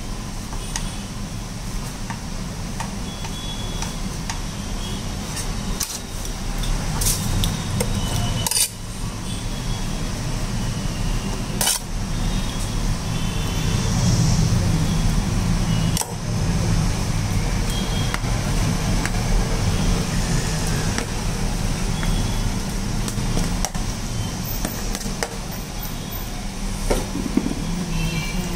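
Steady low background rumble, with a few sharp clicks.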